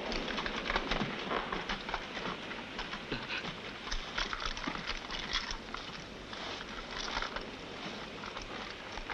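Irregular shuffling and scuffing of several people's footsteps on a rocky path, over a steady hiss.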